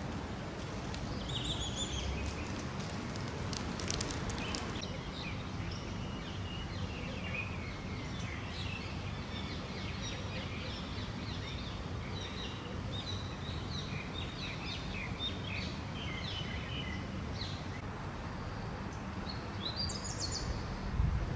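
Outdoor street ambience: many short bird chirps over a steady low background rumble.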